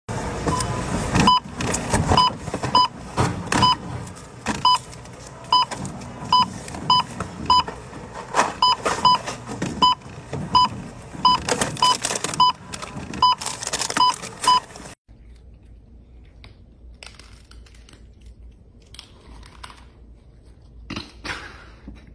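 Supermarket checkout barcode scanner beeping about twenty times at an uneven pace as items are scanned, over the clatter of goods being handled. It cuts off suddenly about fifteen seconds in, leaving a much quieter stretch with a few faint knocks.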